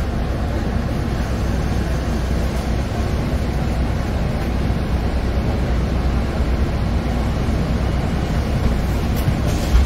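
Steady low rumble of a Solaris Urbino 18 III articulated bus's DAF PR265U1 diesel engine, heard from inside the passenger cabin, with a brief knock near the end.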